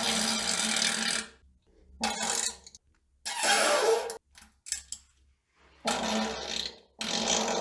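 A series of fart sounds: several loud, raspy bursts of about half a second to a second each, with short silent gaps between them.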